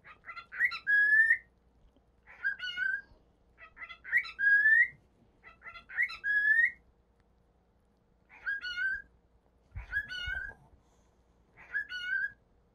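Male cockatiel whistling the same short phrase seven times over: a few quick notes, then a rising note that levels off, every one and a half to two seconds.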